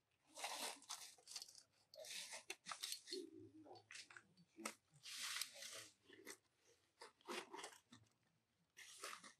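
Irregular crunching and rustling noises, about a dozen short bursts with brief gaps between them.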